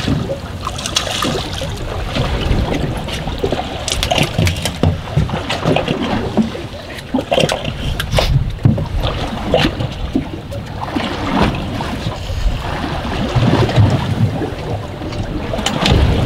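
Water slapping and splashing against the hull of a drifting fishing boat, with a steady low rumble and frequent short knocks scattered through it.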